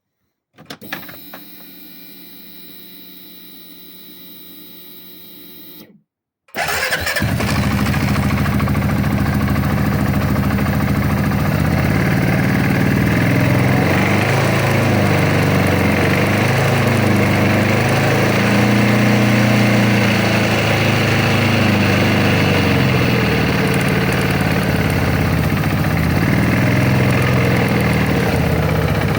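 A quiet steady hum with a few clicks for the first six seconds, a brief break, then an engine running loudly and steadily, its pitch wavering slightly in the middle. The engine is recorded to show a knock (стук).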